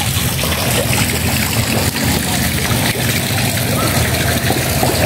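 Water splashing and trickling steadily into a swimming pool from a wall fountain spout, over a low steady hum.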